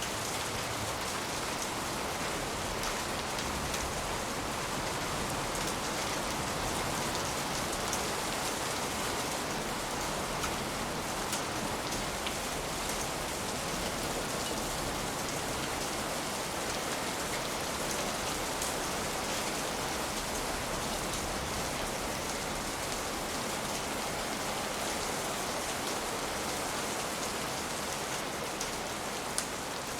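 Steady rain falling on a surface, an even hiss with a scatter of small sharp ticks and drips.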